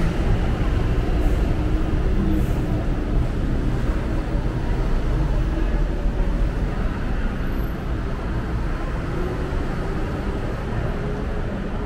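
Steady low rumble of city vehicles in a busy urban centre, with no sharp events.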